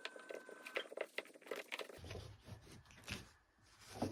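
Faint handling of a miniature skydiver figure as its small fabric jumpsuit is slid off: rustling cloth with many light clicks and taps of small plastic parts. About two seconds in, a duller, lower handling noise comes in.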